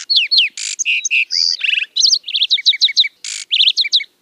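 Lark sparrow singing one long, varied song of quick slurred whistles, short trills and a few harsh rasping notes. The song stops just before the end.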